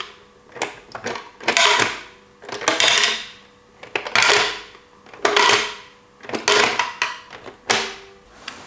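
Plastic toy parts being handled: about eight short rattling scrapes, roughly one a second, each starting with a click.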